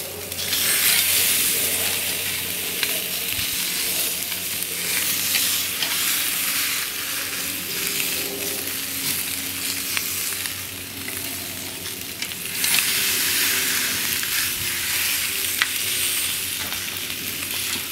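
Ribeye steaks sizzling hard on hot grill grates over a charcoal fire while they are lifted and turned a quarter turn with a metal spatula. The sizzle is steady and hissy with small crackles, and it swells louder just after the start and again about two-thirds of the way through.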